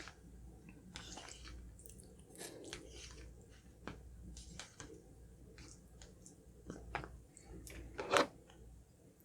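Close-miked chewing and mouth sounds of someone eating, with irregular short smacks and clicks; one is louder about eight seconds in.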